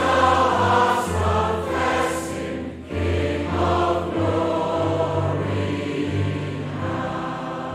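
Choir singing a hymn with held notes over a steady low bass, the sound growing quieter near the end as the hymn closes.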